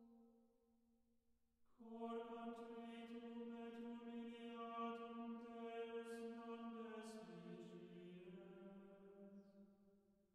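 Slow, quiet background music of long held chant-like notes. One note fades out, a new one enters about two seconds in, and the pitch steps down about seven seconds in before the sound fades near the end.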